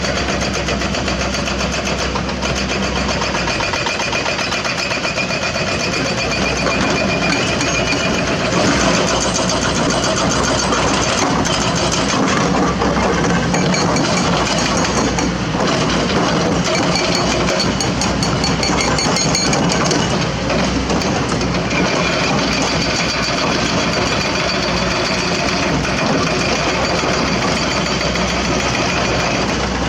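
Diesel engine of a hydraulic excavator running steadily, with a low hum that drops away about three seconds in.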